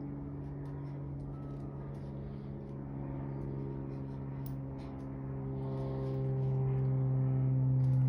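A steady, low mechanical hum, like an engine or motor running nearby, growing louder from about five seconds in, with faint light clicks over it.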